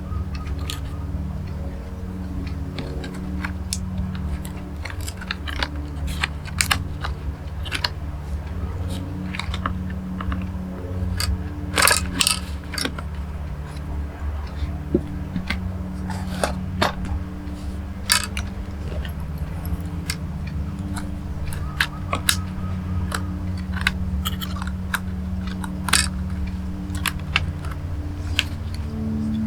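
Small sharp clicks and taps of hands and small tools handling laptop parts, screws and ribbon-cable connectors, over steady low background music.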